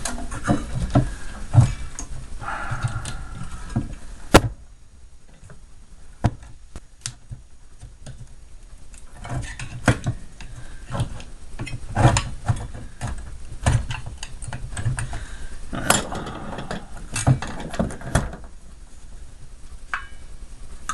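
Irregular clicks, knocks and clatter of metal and plastic parts being handled and pulled apart during disassembly, with one sharp knock about four seconds in and two short stretches of scraping or rattling.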